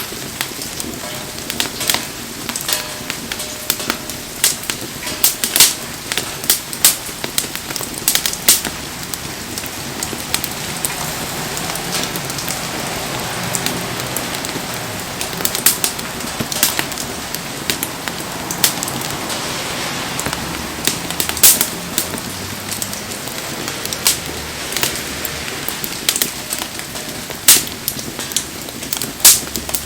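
Wood campfire crackling with many sharp pops, irregularly spaced, over the steady hiss of falling rain.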